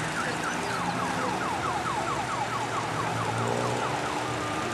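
Emergency vehicle siren in a fast yelp: a rapid run of short falling tones, about four a second, over a vehicle engine running low. Near the end a steady electronic beep tone starts.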